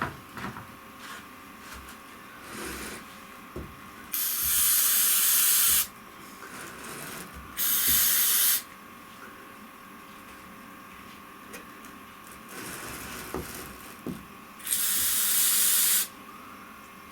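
Aerosol can of rubberized rocker guard coating spraying in three bursts of hiss, the first and last about a second and a half long and the middle one about a second, sealing rivets along a seam. A few light knocks and taps come between the bursts.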